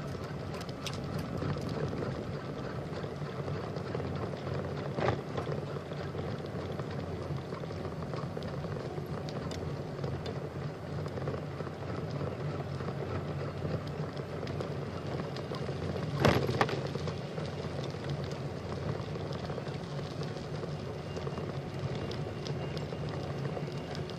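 Steady rolling rumble of a bicycle being ridden along a trail, with two sharp knocks, the louder one about sixteen seconds in.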